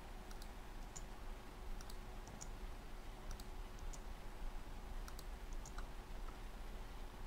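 Faint, irregular clicks of a computer mouse and keyboard as text is selected and deleted in a word processor, over a faint steady hum.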